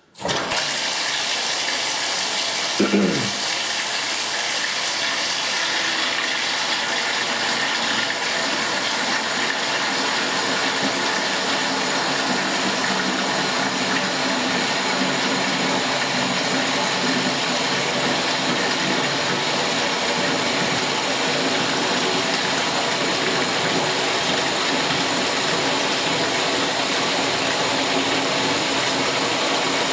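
Tap water gushing from a tub spout into a 5-gallon bucket, fed through a Delta MultiChoice tub and shower valve with an RP46074 cartridge. It is turned on suddenly at the start and runs steadily; the flow is limited by the cartridge, here measured at about 2.5 gallons a minute. A brief sound sliding down in pitch comes about three seconds in.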